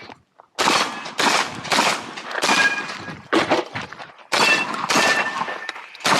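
Rapid shotgun fire during a timed course of fire: a string of loud shots about half a second apart, each with a short echo, and a brief pause a little past the middle.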